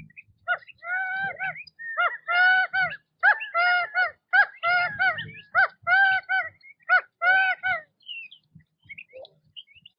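Quail calling: a long run of short calls in quick succession, about two or three a second. The calls stop about two seconds before the end, leaving a few faint notes.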